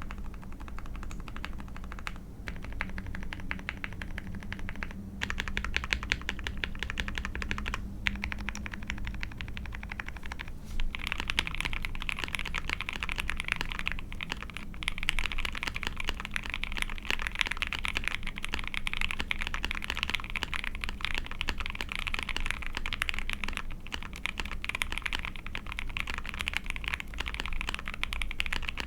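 Typing on an Ai03 Vega mechanical keyboard with a POM plate and lubed SP-Star Yanyu linear switches: a steady stream of keystrokes. There are a few short pauses in the first ten seconds, and about eleven seconds in the typing gets faster and louder.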